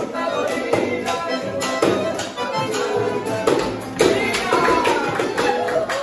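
Live Argentine folk music for a gato: acoustic guitar and a bombo-style drum playing a lively, even beat, with dancers' feet tapping on a hard floor.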